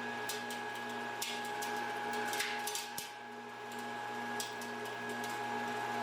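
2-horsepower dust collector running: a steady motor hum with a high whine, and scattered sharp ticks over it.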